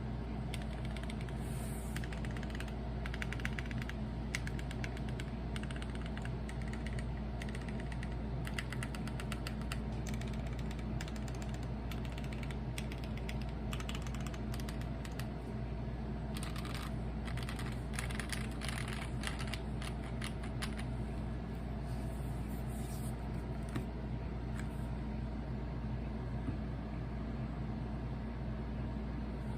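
Typing on a custom acrylic gasket-mount mechanical keyboard with linear TKC Banana Split switches, a polycarbonate plate and GMK keycaps: rapid keystrokes in runs, thinning out over the last third. A steady low hum runs underneath.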